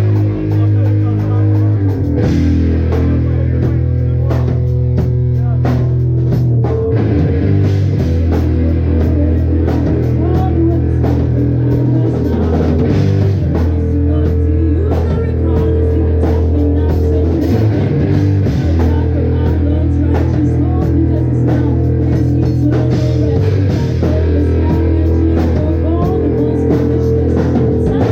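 A live rock band playing loud, with distorted guitar and a drum kit over long held low notes that change every few seconds.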